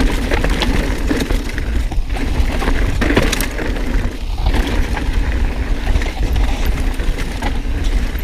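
Mountain bike riding over rough, rocky dirt trail: tyres crunching over stones and the bike rattling with many small knocks, over a steady low rumble of wind on the microphone.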